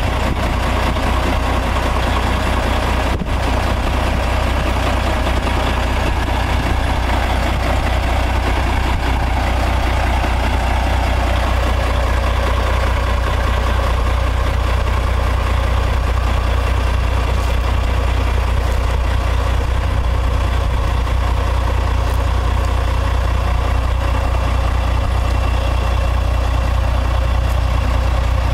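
Diesel engine of a 2005 Peterbilt 379 semi-truck idling with a steady low rumble.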